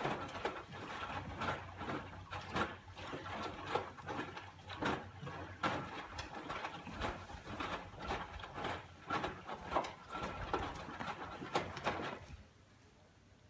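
Irregular clicks, knocks and scraping from hand work on washing-machine parts, several sharp knocks a second, stopping suddenly about twelve seconds in.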